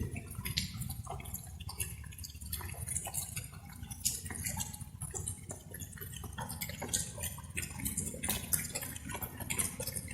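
Light rain: irregular drops dripping and tapping over a steady low background wash.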